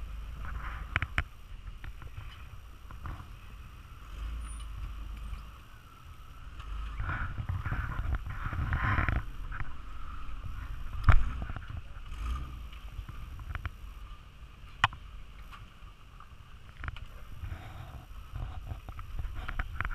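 Rock crawler buggy's engine running as it crawls over rocks, surging louder for a few seconds near the middle. Sharp knocks now and then, one loud one about eleven seconds in.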